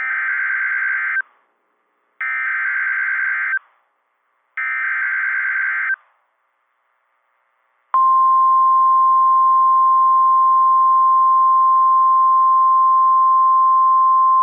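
NOAA Weather Radio Emergency Alert System activation. Three bursts of screeching SAME header data, each a little over a second long, are followed after about two seconds by the steady single-pitch 1050 Hz warning alarm tone, which holds. Together they announce an incoming severe thunderstorm warning.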